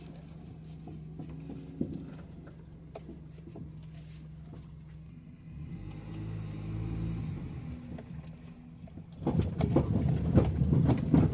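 Maruti Suzuki Alto 800's three-cylinder petrol engine running with a steady hum, swelling for a couple of seconds midway; from about nine seconds in, a loud irregular knocking and rattling sets in. The noise comes from worn-through rubber bushes.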